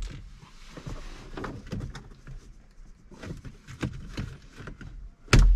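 Plastic interior trim pieces being handled, with scattered light clicks and rustling, and one loud sharp knock near the end.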